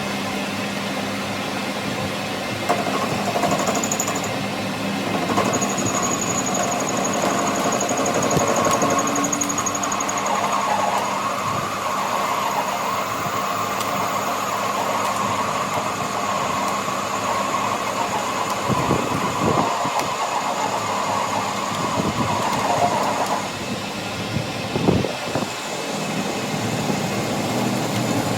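A workshop machine or power tool runs steadily with a constant hum, louder through most of the stretch and easing off a few seconds before the end. A few sharp knocks come in the last third.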